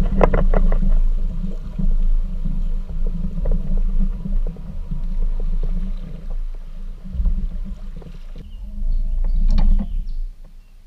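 Water rushing and splashing around a Jackson Kayak Coosa HD as it is pulled and paddled through a shallow creek riffle, with a few sharp knocks in the first second. The rushing drops away about eight seconds in.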